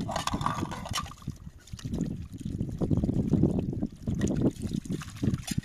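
Dishes being washed by hand in a pot of water: splashing, trickling and the rubbing of a plate being scrubbed, with a couple of light clinks.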